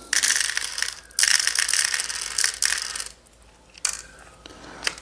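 Small plastic airsoft BBs rattling in two long runs as they are poured into the top loading port of a cheap gravity-fed airsoft shotgun, with one sharp click about four seconds in.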